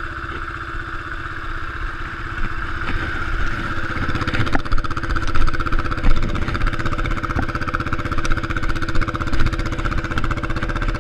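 Sport quad's engine idling steadily, with scattered knocks and bumps as the ATV is wrestled and tips over on a steep sand slope.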